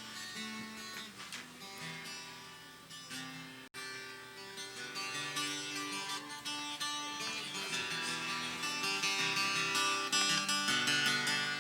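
Instrumental music led by plucked and strummed guitar, with no singing. It cuts out briefly about four seconds in, then comes back and grows louder.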